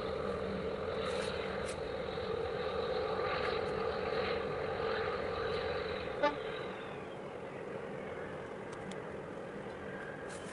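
Steady engine hum with a high whine. About six seconds in there is a short click, after which the whine slides down in pitch and the hum eases off to a quieter level.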